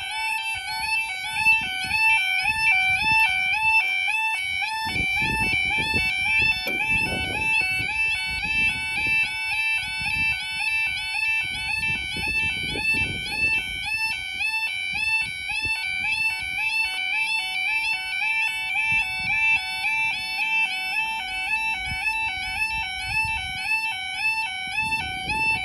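Level crossing audible warning alarm: a two-tone electronic yodel sounding continuously while the half-barriers are down, flipping rapidly and evenly between a higher and a lower pitch. Irregular low rumbling lies underneath.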